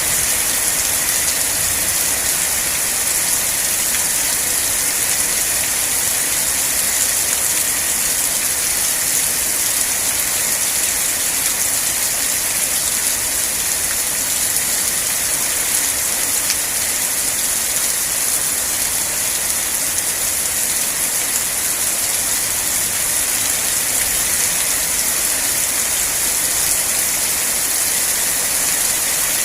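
Steady, heavy rain falling, an even hiss with no breaks or changes.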